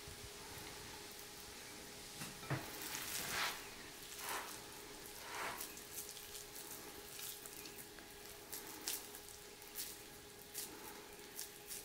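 Oiled hands pressing and shaping raw ground-beef kebab mixture around a metal chopstick. There are a few soft, wet squishes in the first half, then a run of light ticks and taps, over a faint steady hum.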